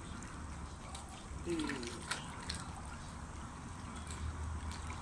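Pool water lapping and trickling lightly as a dog dips its muzzle at the surface, with a few small splashes and a short falling whine about one and a half seconds in.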